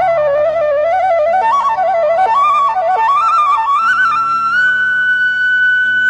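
Relaxing flute music: an ornamented melody winding up and down, then climbing about four seconds in to one long held high note, over soft steady low tones.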